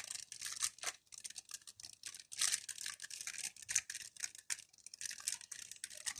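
Hands working a small plastic toy part free of its packaging: irregular scratching, rustling and small clicks of plastic against plastic.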